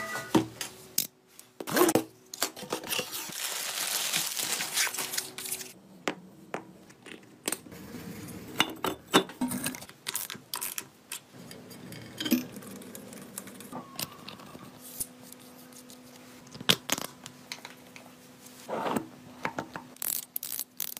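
A cardboard box being cut and torn open, a few seconds of rough tearing and rustling, followed by scattered metal clicks and clinks as motorcycle engine parts are fitted and a bolt is tightened with a socket ratchet.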